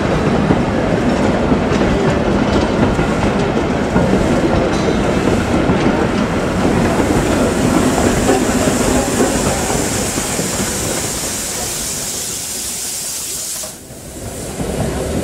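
Freight wagons of a heritage train rolling past at close range, their wheels clattering and rumbling over the rail joints. A high hiss joins about halfway, and the sound fades gradually before a sudden brief dip near the end.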